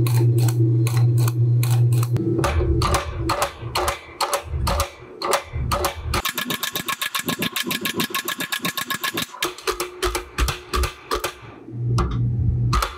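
Hot steel billet being forged. A hydraulic forging press hums steadily, then comes a run of sharp hammer blows on the hot steel, about four a second, which speeds into a very fast, dense burst of strikes for about three seconds. Near the end the press hum returns.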